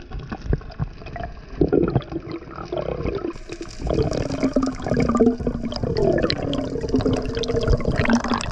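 Water rushing and bubbling around an underwater camera as a freediver swims up toward the surface, with a low wavering hum joining about halfway through.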